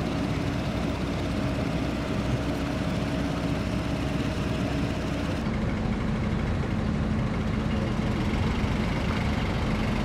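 Engines of vehicles and construction machinery running steadily, a low hum with faint steady tones that changes about halfway through.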